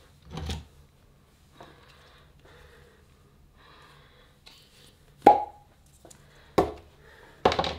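A soft thump, then faint rustling, then three sharp clicks about a second apart near the end, from handling a small plastic glue tube and its cap.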